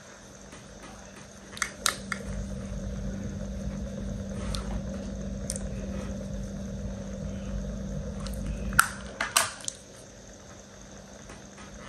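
Handling noise close to the microphone: a low rumbling with a few sharp clicks and taps scattered through it, the loudest near the end, over a steady low hum.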